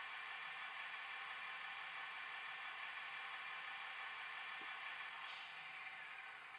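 Howes Class 165 DCC sound chip playing its sampled Perkins diesel engine sound through the small loudspeaker of the stationary model: a steady, thin mechanical hum with a hiss, which begins to fade near the end.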